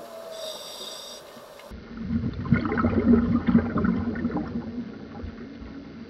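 Scuba regulator exhaust bubbles gurgling as a diver breathes out underwater, loudest from about two seconds in until nearly five seconds. A faint high whine sounds briefly near the start.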